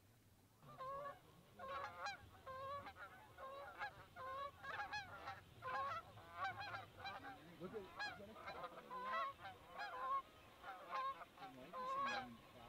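A flock of geese honking in flight, many short calls overlapping one after another, starting about a second in.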